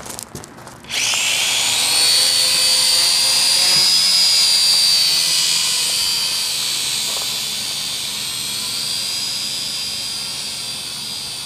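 Small toy quadcopter drone's motors spinning up sharply about a second in and whining at a high pitch as it lifts off, the whine slowly fading as the drone climbs away.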